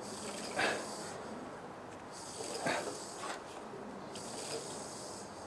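Rubber hand-priming bulb on a diesel fuel line squeezed and released twice, about two seconds apart, pumping fuel through to bleed air from the fuel system after a fuel filter change.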